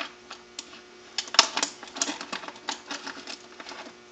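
Rapid irregular clicks, taps and crinkles of a plastic soda bottle and small metal fittings being handled as a washer and air blow-gun nozzle are worked into a hole in the bottle's side, the threads not catching.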